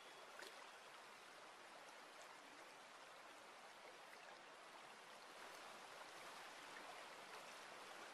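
Near silence: a faint, steady hiss of running water, with a few soft ticks.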